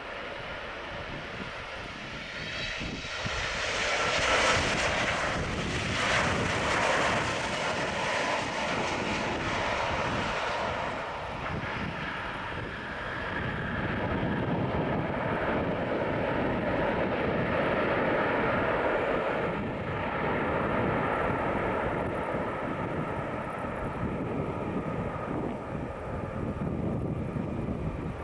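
A Boeing 787-9's twin jet engines as the airliner flies low over the runway and lands. The jet noise swells to its loudest a few seconds in, then settles into a steady, deeper sound as the jet rolls out along the runway and slows.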